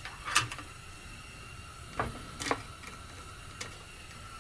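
A few sharp clicks and knocks from hands and tools working on a chainsaw: the loudest about half a second in, two more close together around the middle, and a faint one later, over a faint steady high hum.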